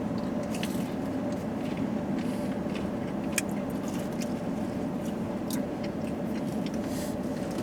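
Steady low hum of a car running while parked, with scattered close crunching and chewing of pizza crust, which the eater calls "crunchy as hell."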